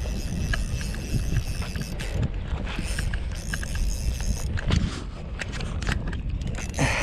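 Wind buffeting the microphone in a steady low rumble, with scattered small clicks and a brief louder rush near the end.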